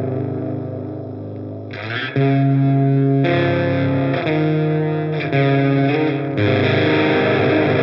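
Electric guitar played through the Audio Disruption Devices Transformations fuzz pedal. A distorted chord rings out and fades, then a run of held fuzz chords is struck about once a second.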